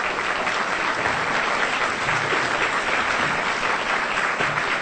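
Audience applauding in a large hall: steady, dense clapping from many hands.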